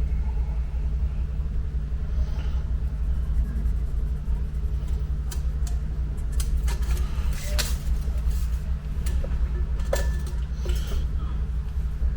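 Steady low mechanical hum, like a motor running, with scattered light clicks and taps between about five and eleven seconds in.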